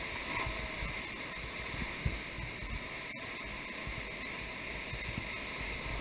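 Whitewater rapids rushing around a raft: a steady hiss and rumble of churning water, with a single sharp thump about two seconds in.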